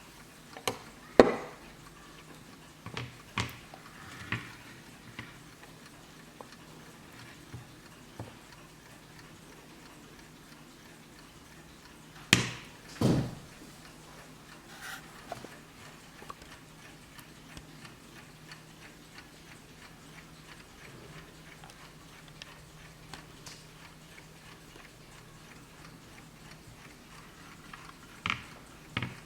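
Warmink WUBA mechanical mantel clock ticking steadily and faintly, with several louder irregular knocks, the loudest about a second in and around twelve to thirteen seconds in.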